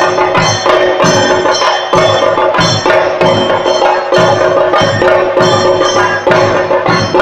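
Chenda drums beaten with sticks in a steady, fast repeating rhythm, with a ringing metallic tone on the beats: the percussion that accompanies a Muthappan theyyam.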